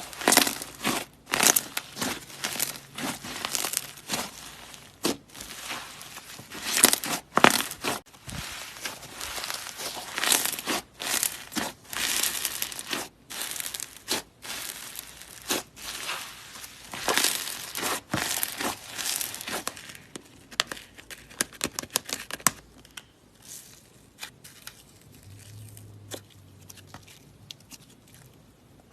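Slime being squeezed and stretched by hand, giving irregular crackles and pops. The crackles come thick and fast for about twenty seconds, then grow sparser and fainter.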